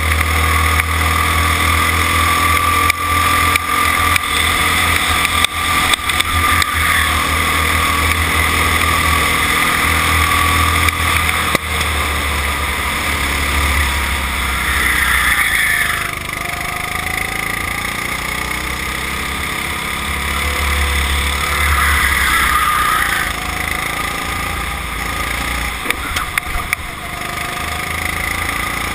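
Go-kart engine running at speed, heard from the driver's seat, with a low rumble underneath and occasional knocks. The engine note changes twice, about halfway through and again a few seconds later, as the kart slows for a bend and pulls away again.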